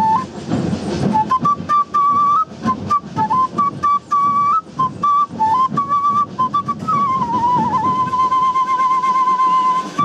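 Quena, an Andean notch flute, played solo: a quick melody of short notes stepping up and down in a narrow range, then one long held note with a slight vibrato for the last three seconds.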